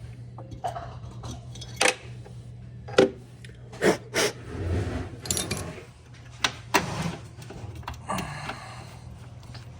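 Sharp metal taps and clanks of hand tools working copper refrigeration tubing, about half a dozen spread unevenly, over a steady low hum.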